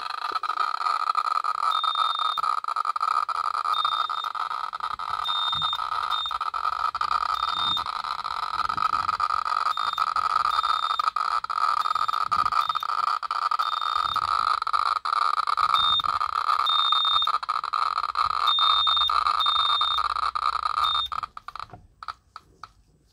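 Geiger counter held against pitchblende uranium ore, clicking so fast that the clicks run together into a steady buzz: a very high count rate, over 500,000 counts per minute. Short high beeps come in at irregular intervals. The sound cuts off suddenly about a second and a half before the end.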